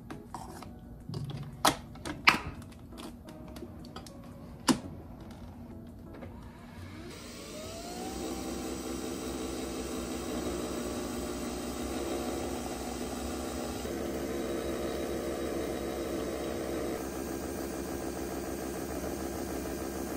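Nespresso Vertuo coffee machine. A few sharp clicks come as the capsule goes in and the head is shut. About seven seconds in, the motor spins up with a rising whine, then runs with a steady whirring hum while coffee pours into the cup.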